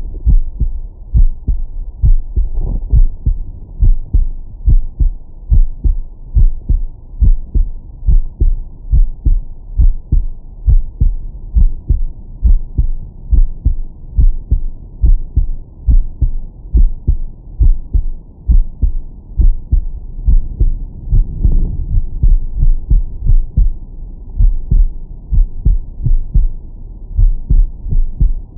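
A man's heartbeat heard through a Stemoscope digital stethoscope in its 20–1000 Hz mode: a steady, regular lub-dub with a loud, deep bass thump on each beat. A brief noise rises over the beats about two-thirds of the way through.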